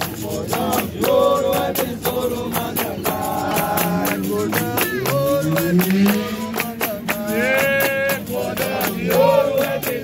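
Capoeira roda music: group singing over a steady rhythm of pandeiros, a berimbau and hand-clapping.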